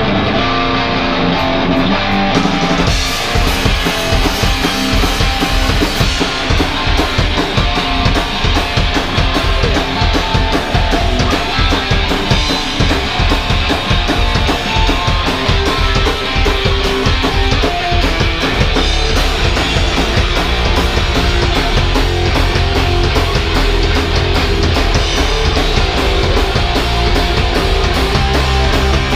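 Live punk rock band playing loud: a strummed electric guitar alone at first, then the drum kit comes in about two and a half seconds in with a fast, steady beat.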